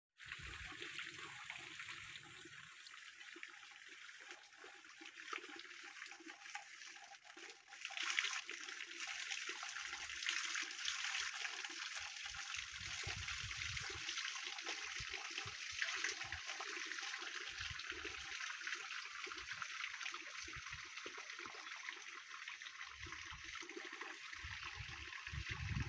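Steady hiss of water that grows louder about eight seconds in, with irregular low bumps now and then.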